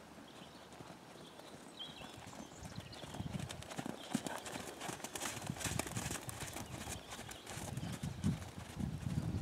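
Hoofbeats of a ridden horse on a sand arena: dull, rhythmic thuds as it trots and then canters, growing louder from about three seconds in as the horse comes close.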